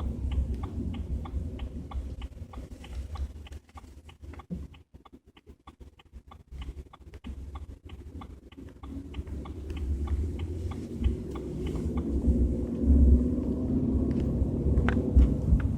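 Low rumbling in a BMW 320i's cabin while driving, the strange rumble that shows up at 30 to 40 km/h. It fades away about four seconds in and builds up again from about nine seconds, with a quick even ticking about three times a second running through most of it.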